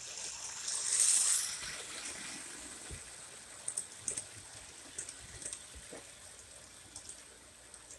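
O-gauge model train running on 027 tinplate track: a brief rushing hiss about a second in, then scattered light clicks and rattles from the wheels on the rails.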